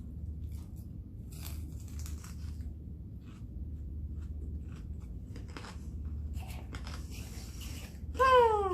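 Chewing a mouthful of chicken Caesar salad, with scattered crisp crunches. Near the end a short, loud whine falls in pitch.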